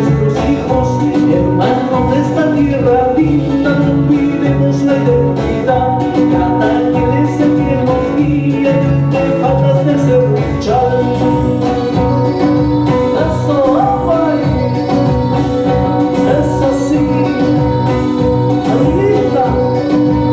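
A man singing a folk song to a strummed nylon-string classical guitar.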